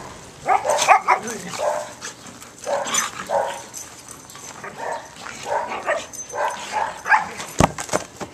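A dog barking in a string of short, separate barks and yips, with one sharp click near the end.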